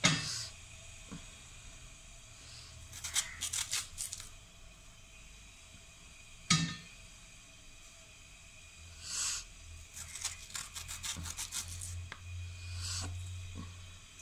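Banana stem pith being snapped and its fibres torn off by hand: clusters of quick crisp snaps and tearing, with two sharper knocks, one at the start and one about six seconds in.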